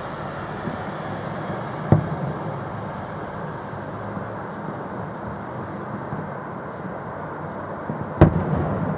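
Fireworks salute shells bursting with sharp bangs, one about two seconds in and a louder one near the end, over a steady background din.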